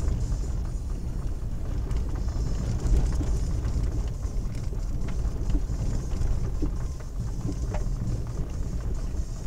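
A car driving slowly along a muddy, rutted dirt road, heard from inside the cabin: a steady low rumble from engine and tyres, with a few light knocks.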